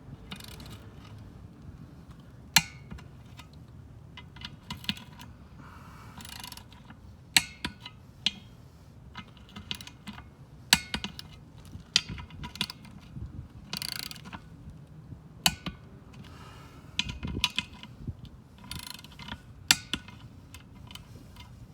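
Click-type torque wrench ratcheting in short runs as the beadlock ring bolts are drawn down in a cross pattern, with a sharp click each time a bolt reaches the set torque of about 22 lb-ft.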